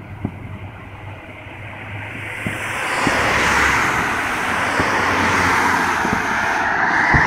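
Road traffic passing close by: the tyre and engine noise of cars swells about two seconds in and stays loud. A few faint thumps of distant fireworks sound underneath.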